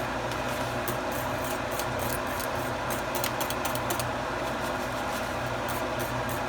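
Wire whisk beating instant mashed potato mix in a pot, giving light irregular clicks and scrapes over a steady background hum.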